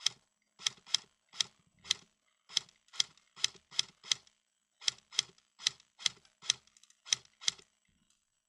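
Airsoft gun firing single shots in quick succession, about two sharp cracks a second, about seventeen in all, stopping shortly before the end.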